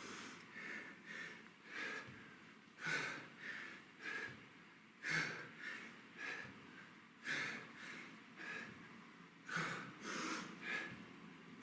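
A man breathing hard from exertion: short, forceful breaths in and out through the nose and mouth, one every half second to a second, in loose groups.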